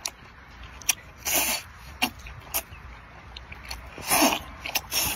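Close-up eating sounds of a person eating seafood by hand: wet lip smacks and sharp clicks, with two longer slurps, one about a second and a half in and a louder one about four seconds in.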